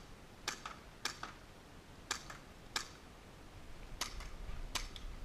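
Airsoft guns firing single shots, about six sharp cracks at uneven intervals, each followed closely by a fainter click.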